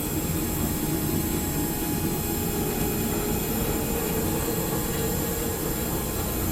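A motor running steadily, with a faint high-pitched whine over an even whir.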